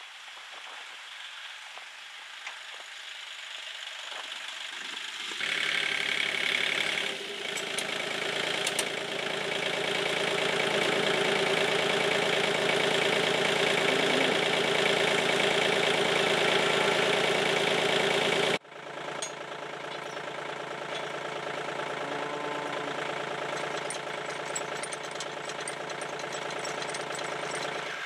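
Kubota L2250 compact tractor's three-cylinder diesel engine running at a steady idle. It gets louder about five seconds in and drops suddenly to a lower level about two-thirds of the way through.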